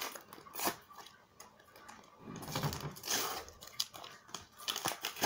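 A Panini sticker packet being torn open and its wrapper handled: faint scattered clicks and rustles, with a longer stretch of crinkling about halfway through.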